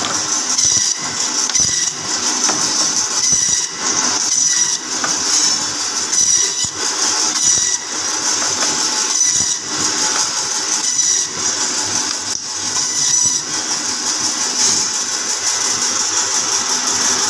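Butcher's meat band saw running with a steady high whine, its blade cutting again and again through frozen beef silverside, the sound swelling and dipping with each pass.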